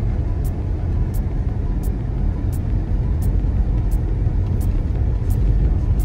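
Car interior road rumble from driving slowly on a snow-packed street, a steady low drone of engine and tyres, with a faint tick repeating about every 0.7 seconds.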